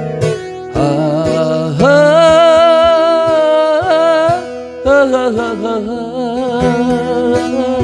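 A man singing a Korean trot song over his own strummed acoustic guitar, holding one long note with a slight waver for about two seconds before starting the next phrase.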